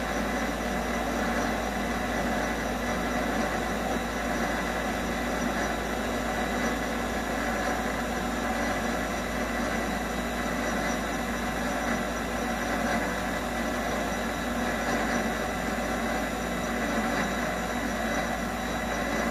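MX-210V mini lathe running steadily at about 500 rpm, its motor and drive giving an even hum with a steady whine, while the tool takes a slow cut into a rubber billet.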